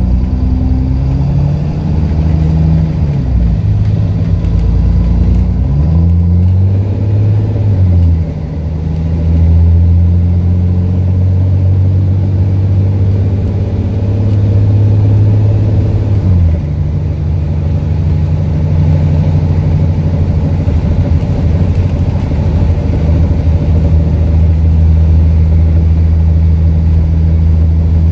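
Alexander Dennis Enviro400 double-decker bus's diesel engine, heard from inside the passenger saloon, pulling through its Voith automatic gearbox. The engine note climbs and falls back twice in the first eight seconds as the gears change, holds steady, then drops about sixteen seconds in and runs on steady. The bus's exhaust is blown.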